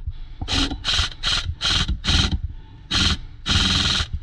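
Airsoft electric gun (AEG) firing: a quick string of short bursts, then two longer bursts near the end.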